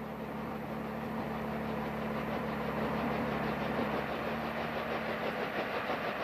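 A Bell H-13 Sioux helicopter's piston engine and two-blade rotor run as it flies in low and hovers. The sound is a steady drone with a fast, even beat and grows slowly louder.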